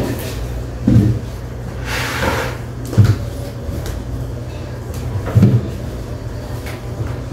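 Cleaning a chest freezer by hand: a cloth rubbing on the freezer's cabinet, with three dull knocks about two seconds apart as she bumps against it. A steady low hum runs underneath.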